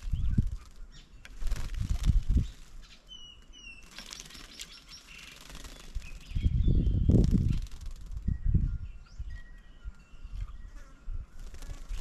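Birds at a bird table chirping and giving short whistled calls. Low fluttering, rustling bursts break in near the start, around two seconds in, and most loudly from about six to nine seconds.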